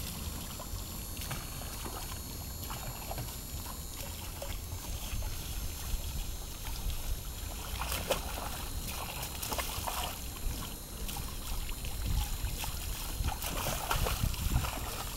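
Water splashing and sloshing in a small plastic pool as a dog stamps and snaps at a hose spray, the splashes busiest about eight seconds in and again near the end. A low steady rumble runs underneath.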